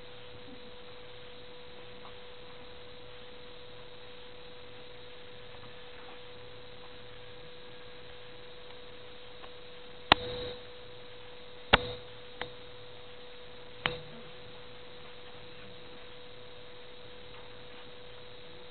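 A steady electrical hum at one unchanging pitch over faint hiss, with four sharp clicks a little past halfway through.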